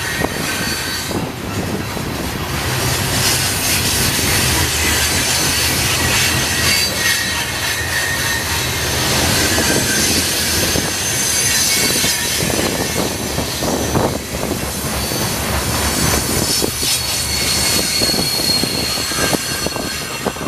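CSX coal train's hopper cars rolling past: steel wheels rumble and clatter over the rail joints, with a high-pitched wheel squeal coming and going over the top.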